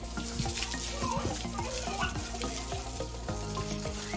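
Garden hose spraying water over a motorcycle: a steady hiss of spray spattering on the bike.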